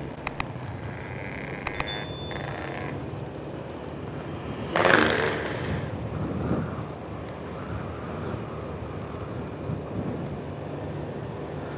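Small motorbike engine running steadily at low road speed, with wind and road noise. A few clicks and a short high ring come about two seconds in, and a louder swell of noise falls away about five seconds in.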